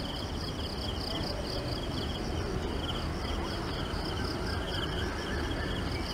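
Insects, likely crickets, chirping in short repeated high-pitched trills at two pitches, over a steady low rumble of outdoor background noise.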